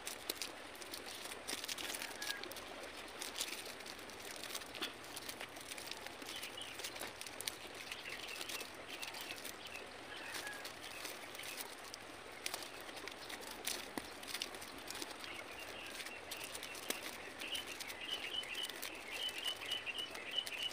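Birds chirping, with a quick run of high chirps near the end, over light clicks and rustles of hands binding a bamboo crossbar with cord.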